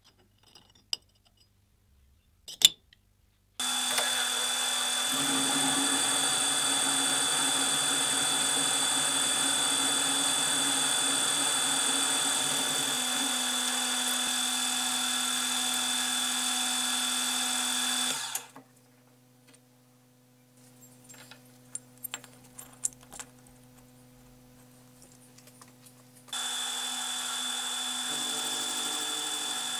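A few sharp clicks, then a milling machine running with a steady high whine as its end mill cuts metal. It stops about 18 seconds in, leaving faint hum and scattered light clicks, and starts again near the end.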